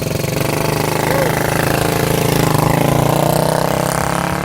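Motorcycle engine running hard and loud with a rapid staccato beat, its pitch climbing and then easing back.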